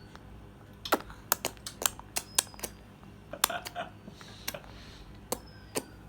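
A baby making sharp, irregular clicking sounds with his mouth, about a dozen clicks beginning about a second in.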